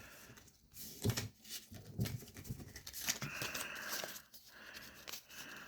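Trading cards being flipped through and slid against one another by hand: faint rustles and light taps and clicks.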